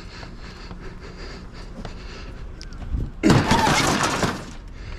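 A loud crash about three seconds in, lasting just over a second: a discarded TV being thrown down or loaded onto the pile in the truck.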